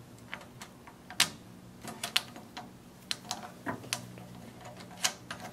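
Irregular light clicks and taps of a small wire lead being fastened to the pilot arc terminal on a welder/plasma cutter's front panel, about a dozen in all, the sharpest about a second in and near the end, over a faint steady hum.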